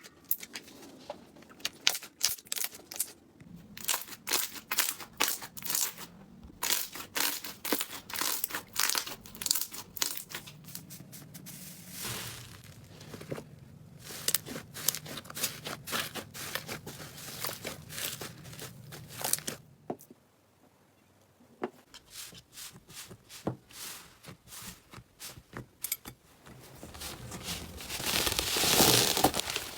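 Slime being squeezed and worked by hand: rapid crackling and popping clicks, with a brief quiet pause about two-thirds through and a longer crinkly rush near the end.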